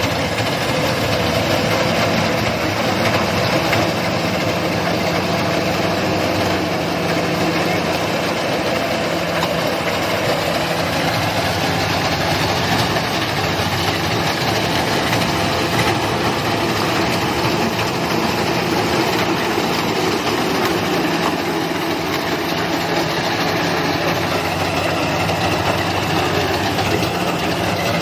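Rice combine harvester's engine running steadily with a broad mechanical din from the working machine.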